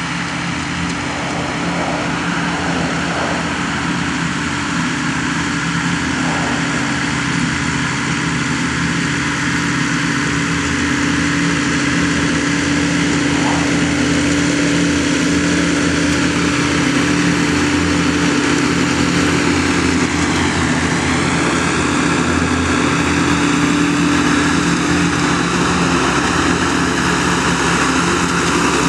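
Big Jacobsen mower running steadily while mowing, a loud, even engine hum. About two-thirds of the way through, a high whine in it dips briefly and recovers.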